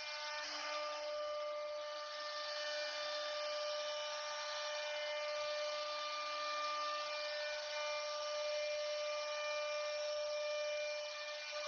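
CNC router spindle running steadily with a constant high whine and a hiss, typical of the router cutting into a wooden door panel.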